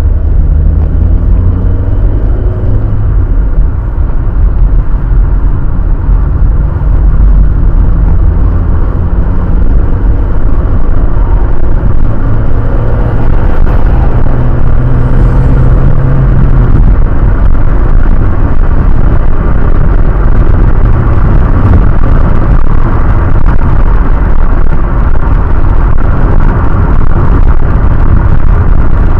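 Car engine and road rumble heard inside the cabin through a windshield dashcam's microphone, loud and close to full scale. The engine note climbs in pitch in steps as the car accelerates up through the gears over the first quarter-minute or so, then settles into a steady engine and tyre rumble at cruising speed.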